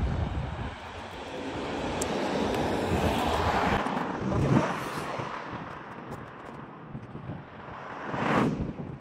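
Cars driving past on a road, the noise of tyres and engines swelling and fading as each goes by, with the loudest pass near the end.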